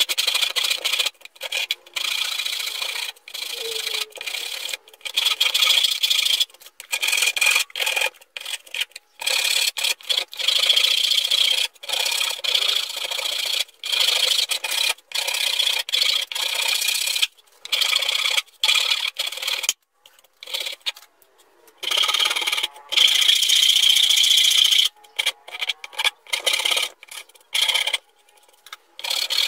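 Hand-held wood rasp scraping along the edge of a pallet-wood board, rounding it off in repeated back-and-forth strokes, with a brief pause about twenty seconds in.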